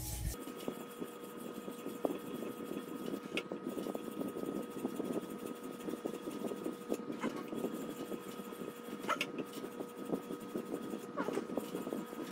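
Wetted 45-micron diamond film on a guided sharpener's arm, rubbing back and forth along a ceramic knife's edge: a steady gritty scraping, with a sharper click now and then. This coarse grit is still refining the edge after chip removal.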